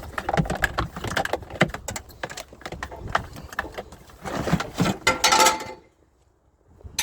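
Scrap metal clattering and rattling as it is handled: a dense run of quick knocks and jingles that stops abruptly about six seconds in, followed by a single click at the end.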